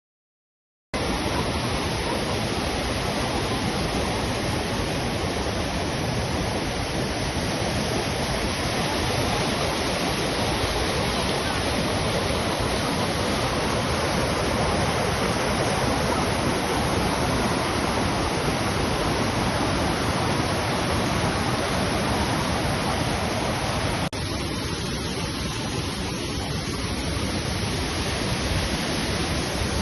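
Waterfall: a steady, dense rush of falling water. It starts abruptly about a second in and dips slightly in level about four-fifths of the way through.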